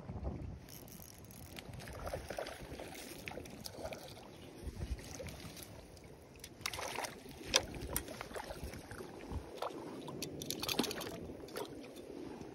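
Water splashing and sloshing over a low rumble of wind on the microphone, with a few sharper splashes, the loudest about seven and a half seconds in and more around eleven seconds.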